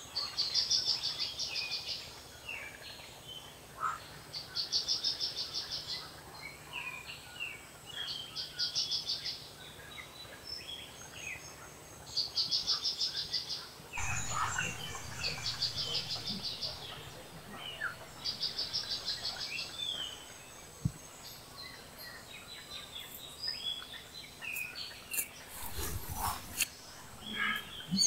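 Wild birds calling in the mangrove canopy: a high, fast-pulsed trill lasting about a second and a half, repeated roughly every four seconds, over scattered short chirps. There is a brief low rumble about halfway through and again near the end.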